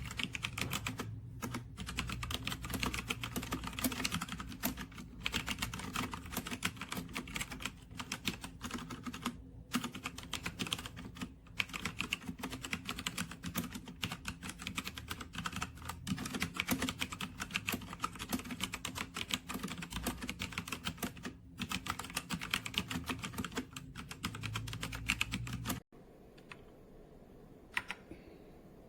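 Keys of a TMKB T68SE 60% mechanical keyboard clacking under fast, continuous typing, with brief pauses. The typing cuts off abruptly near the end, leaving only a few single key clicks.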